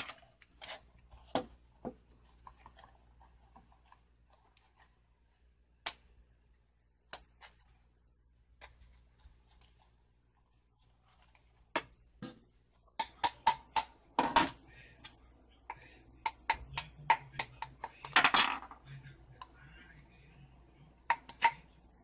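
Clicks, knocks and rattles of hard plastic and metal parts being handled on a workbench. A homemade sander's housing and a sanding pad are picked up, set down and fitted, with a quick run of clicks about halfway through and a short scraping rustle a few seconds later. The sander's motor is not running.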